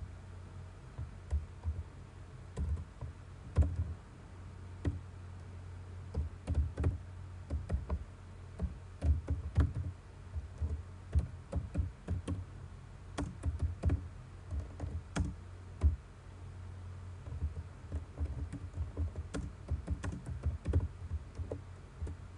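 Computer keyboard being typed on: irregular keystroke clicks with short pauses between bursts, over a steady low hum.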